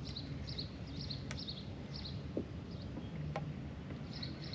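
A small bird chirping over and over, two or three short high chirps a second, over a low steady hum, with a few faint clicks.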